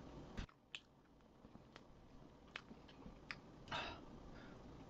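Quiet close-up chewing of chocolate cake: scattered soft mouth clicks, with a sharp click just after the start. Near the end comes a brief rustling squish as a slice of white bread is pressed into a bowl of Nutella.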